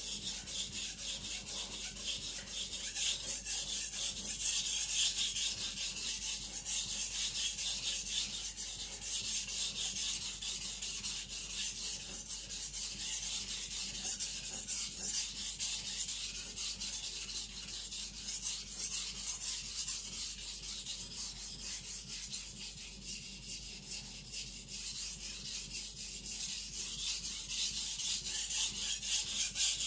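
Eden Kanso aogami carbon-steel gyuto being stroked back and forth on a whetstone in a steady run of rapid strokes, a continuous high scraping hiss. The blade is being thinned just above the shinogi line, at a low angle.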